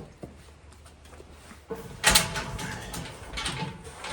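A sharp click, then from about two seconds in a run of clattering and scraping, like a lid or door on a storage container being opened and handled.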